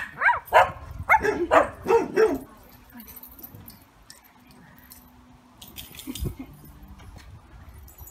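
Dogs barking and yipping, a quick run of about seven short barks in the first two and a half seconds, then only faint scuffling with a soft knock near the end.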